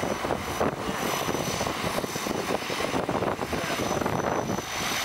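A de Havilland Canada DHC-6 Twin Otter's two turboprop engines and propellers running steadily as the plane taxis past, with a faint high whine over the drone.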